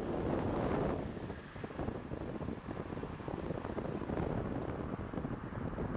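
Wind buffeting a microphone that is moving along at riding speed: a dense, low, gusty rush, a little louder in the first second.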